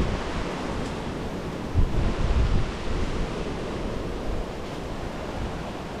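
Steady wash of sea surf on a beach, with wind on the microphone that buffets briefly about two seconds in.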